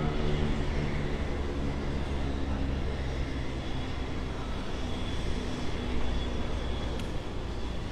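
Aircraft engine running steadily: a low, even drone with a hum of several steady tones, easing off slightly over a few seconds.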